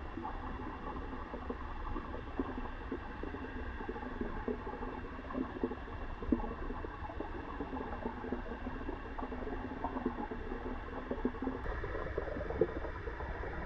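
Water bubbling and gurgling steadily, with many small irregular pops.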